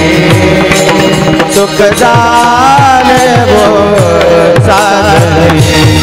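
Devotional kirtan music: a solo voice sings a slow, ornamented line with sliding pitch, over regular deep hand-drum strokes whose bass notes slide downward and the clash of small hand cymbals (taal), with a steady drone underneath.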